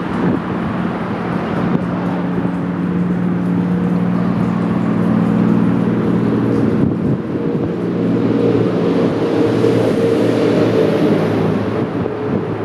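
Forest river flowing steadily, with a steady low drone beneath the rush of water.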